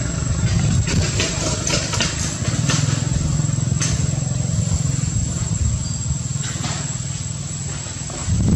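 An engine running steadily with a low hum, with a thin steady high tone above it and a few short clicks in the first half.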